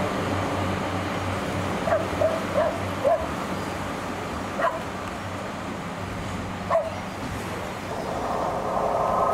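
A small dog yapping: about seven short, sharp yips, several close together about two seconds in, then single ones later, over a steady low hum. A louder rumbling noise builds near the end.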